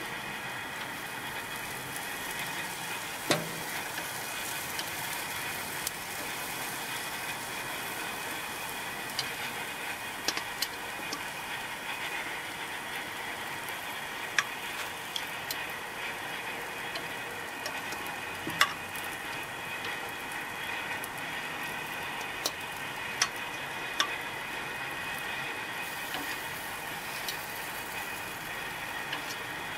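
Marinated zucchini slices sizzling on a hot grill, a steady hiss, with sharp clicks of metal tongs every few seconds as the slices are placed.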